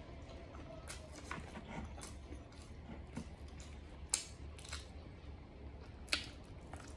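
A person eating braised pork offal close to the microphone: scattered sharp, wet mouth clicks and chewing, with two louder clicks about four and six seconds in, over a low steady hum.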